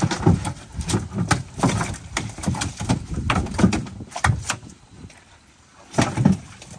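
A fish and a nylon gill net being handled in a wooden dugout canoe: a run of irregular knocks and slaps against the wooden hull, a lull of about a second, then a last flurry near the end.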